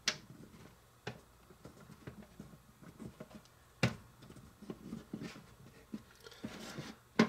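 Small wooden rolling pin rolling over a slice of crustless bread on a hard toy-kitchen counter: soft rubbing and light ticks, with a few sharp knocks as the pin and hands bump the surface, the loudest near the start, about a second in, about four seconds in and just before the end.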